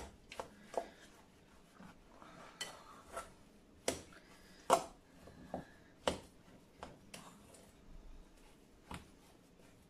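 Butter knife clinking and scraping against a glass mixing bowl while stirring soda bread dough, in irregular separate knocks with quiet between them; the loudest comes near the middle.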